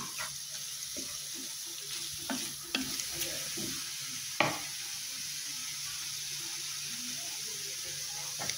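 Diced carrot, onion, chillies and curry leaves sizzling steadily in hot oil in a pan, with a few sharp knocks of the spatula against the pan, the loudest about four and a half seconds in.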